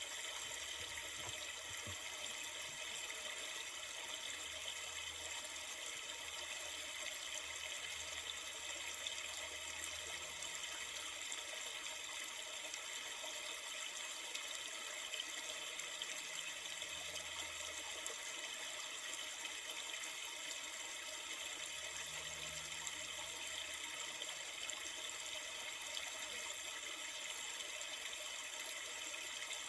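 A river flowing: steady, even rushing of water that does not change.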